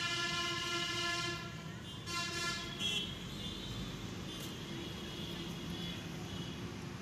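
A vehicle horn sounding on the road: one long honk at the start and a shorter one about two seconds in, over the steady rumble of passing traffic.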